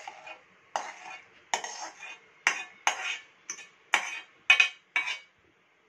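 Steel ladle scraping and knocking against a steel kadai as the oily tempering is scraped out onto rice: a run of about ten sharp metallic scrapes and clinks roughly every half second, loudest near the end, stopping about five seconds in.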